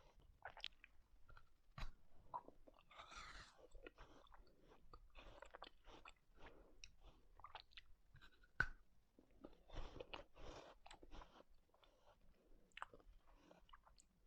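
Quiet close-miked mouth sounds of someone eating ice cream: soft, irregular chewing and wet smacking, with a sharper click about eight and a half seconds in.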